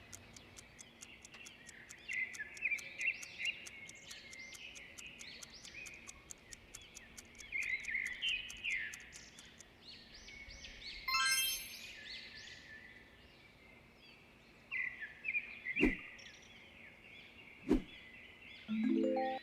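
Birds chirping and twittering over and over, with a bright ringing tone about eleven seconds in, two sharp clicks later on, and a short rising tone near the end.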